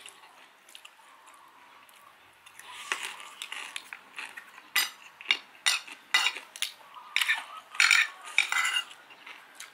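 A metal spoon and fork scraping and clinking against a plate of food. It is quiet for the first couple of seconds, then a run of sharp clinks and scrapes follows, loudest near the end.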